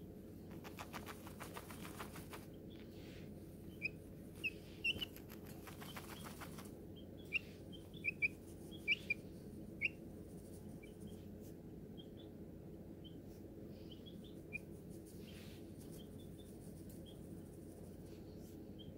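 Baby chicken peeping: many short, high chirps, the loudest in a run about eight to ten seconds in. Two spells of rustling early on, as the chick wriggles on a towel while dust-bathing.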